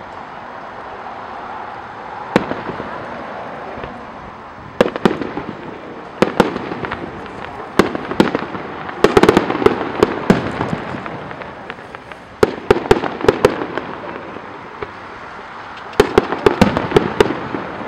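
Aerial fireworks bursting overhead: single sharp bangs every few seconds, with quick runs of crackling reports around the middle and again near the end.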